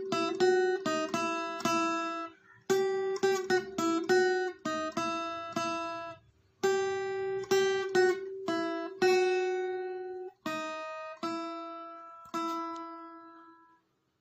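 Background music: an acoustic guitar picking a slow melody in short phrases of plucked notes, each note ringing and dying away. The last notes fade out near the end.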